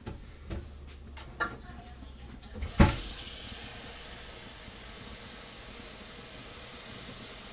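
A sharp knock about three seconds in, then a kitchen tap running steadily, filling a glass measuring cup with water. A few light handling knocks come before it.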